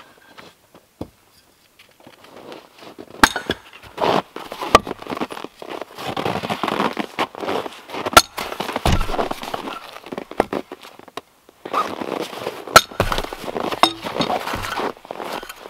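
Firewood being split with an axe on a chopping block: several sharp cracks of the blade biting and the wood splitting, irregularly spaced. Between the strikes there is rustling and shuffling in the snow.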